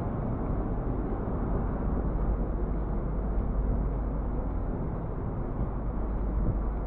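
Steady low rumble of city street noise, traffic running past, with no single sound standing out.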